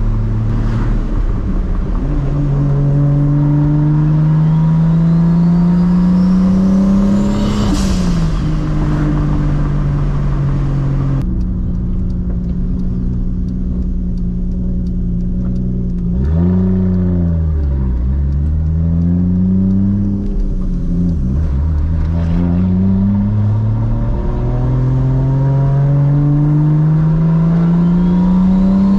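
Straight-piped, big-turbo 2JZ inline-six of a MKIV Toyota Supra driving through the gears: the revs climb, fall sharply at a gear change about eight seconds in, hold steady, dip and waver in the middle, then climb again near the end. A thin turbo whistle rises with the revs as they climb.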